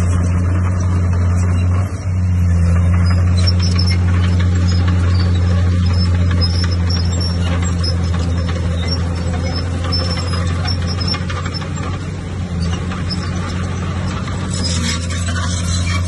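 Heavy diesel engine of earthmoving machinery running steadily, a low continuous drone, with a brief dip in level about two seconds in.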